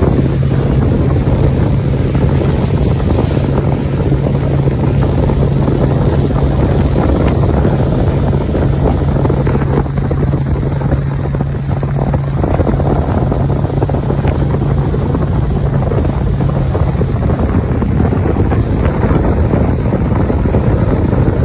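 Motorboat running steadily at speed: an even engine drone under wind buffeting the microphone and water rushing past the hull.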